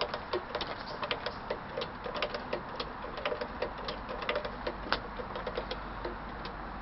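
A 1911 Singer 29-4 industrial sewing machine run on its treadle, clattering in quick, irregular clicks that thin out and stop about six seconds in.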